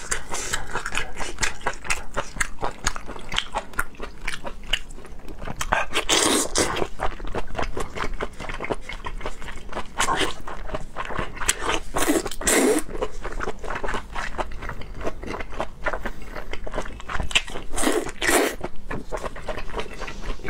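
Close-miked chewing and wet mouth noises of a person eating braised octopus tentacles, with dense clicking throughout. Several louder slurps come as tentacles are sucked into the mouth.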